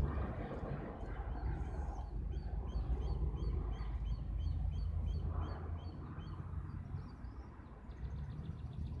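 Low, steady rumble of an Airbus A320neo's jet engines on final approach, mixed with wind on the microphone. Through the middle a bird calls in a rapid series of short high chirps.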